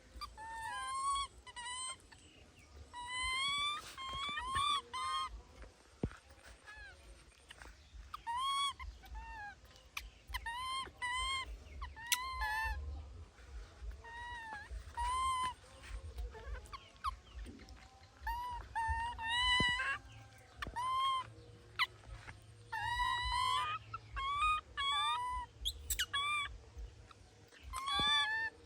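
Baby monkey calling over and over: short, high-pitched cries, each rising then falling, often coming two to four in quick succession.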